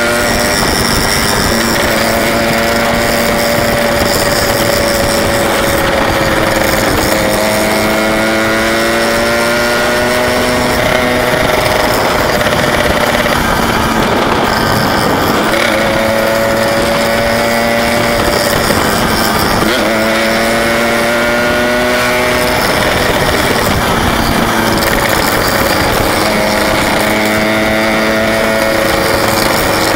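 Yamaha RX-King 135's single-cylinder two-stroke engine running at speed under wind rush. Its pitch wanders slowly, and twice it drops sharply and climbs again as the revs fall and pick back up.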